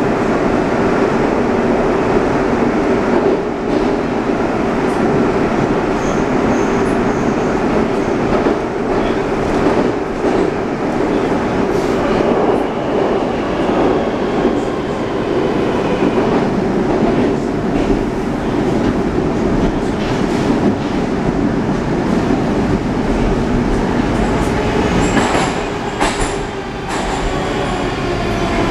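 Rusich 81-740/741 metro train running through a tunnel, heard from inside the car: a steady loud rumble of wheels on rail with occasional clicks over rail joints, and a whine that shifts in pitch near the end.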